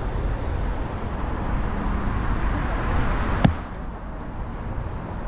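Road traffic passing alongside, with wind rumbling on the microphone of a moving scooter rider. A sharp click about three and a half seconds in, after which the hiss eases.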